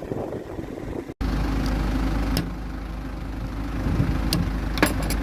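Engine or machinery running steadily with a low rumble, broken by a few sharp metallic clicks and knocks near the end. The sound cuts out briefly about a second in and comes back louder.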